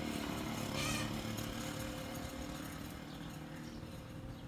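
An engine running steadily in the background, with a brief higher-pitched sound about a second in.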